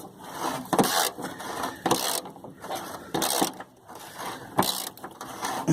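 Hand ratchet wrench clicking in repeated strokes as it backs out a rusted rear body bolt on a Chevy S10 Blazer frame.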